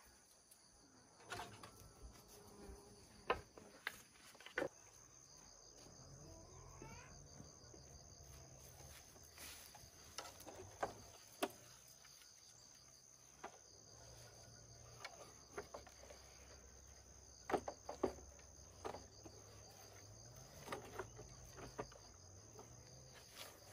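Insects chirring in a steady, high, even tone, with scattered knocks and clicks and a faint low hum that comes in a few seconds in.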